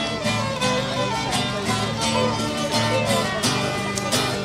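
Fiddles and an acoustic guitar playing a tune together, the fiddles carrying the melody over a steady strummed guitar rhythm.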